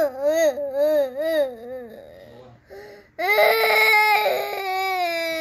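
A 21-month-old toddler crying: wavering sobs for about two seconds, a short pause for breath, then a loud, long wail starting a little after three seconds in.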